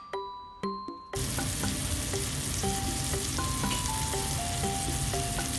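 Mozzarella-filled sausage sizzling as it fries in oil in a pan. The steady sizzle starts suddenly about a second in, after light chime-like background music, and the music carries on faintly over it.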